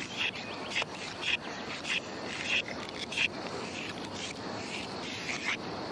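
Short scraping and rustling strokes of long green leaves being worked by hand, about one every half second and sparser toward the end, over a steady outdoor hiss.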